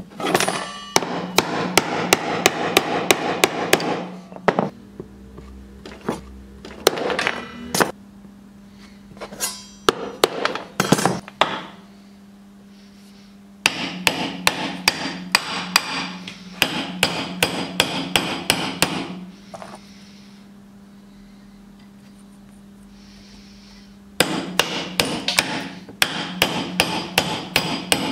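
Hammer driving split wooden sticks through a steel dowel plate to round them into pegs: runs of quick sharp blows, about four a second, separated by pauses with a few single knocks.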